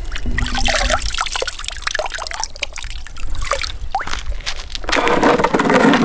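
Lake water trickling and dripping from cupped hands as it is scooped out of a hole in the ice, with small splashes; a louder breathy sound comes near the end.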